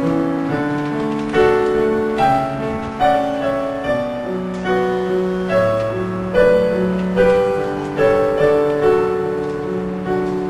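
Solo piano playing a slow passage of chords and melody, each note struck and then fading.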